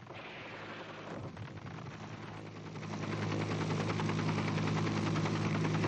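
Helicopter in flight heard from inside the cabin: a steady engine drone with fast, even pulsing, getting louder about halfway through.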